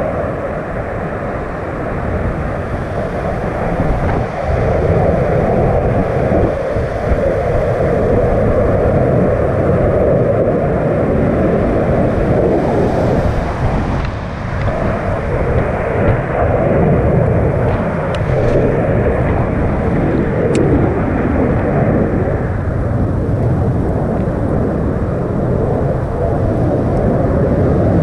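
Wind buffeting an action camera's microphone: a loud, steady rush, heaviest in the low range.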